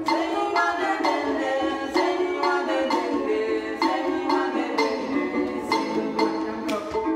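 Ghanaian seperewa harp-lutes plucked while an adenkum bottle gourd is struck with the palm for a regular beat, and voices sing together over them.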